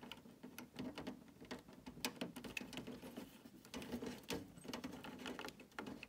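Faint, irregular clicks and scratches of fingers handling small plastic front-panel connector plugs and cables while pressing a connector onto a motherboard's front panel header pins.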